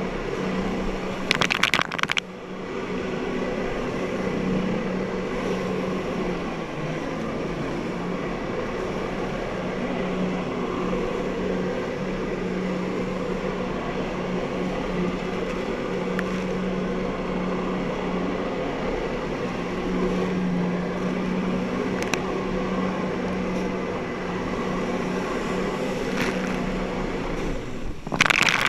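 Jet ski engine running steadily under sustained throttle, its jet pump driving water up the hose to a flyboard, with a hiss of water spray throughout. There are loud bursts of spray splashing over the jet ski about a second in and again near the end.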